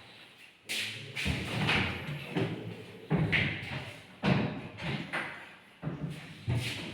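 Kitchen cabinet doors and drawers being opened and shut: a series of about nine irregular thumps and knocks.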